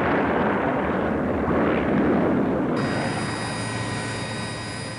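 A Sea Skua missile explodes on a small boat as a dense, rumbling roar that slowly dies away. About three seconds in it gives way to the steady cabin noise of a Westland Navy Lynx helicopter, a hiss with several thin high tones.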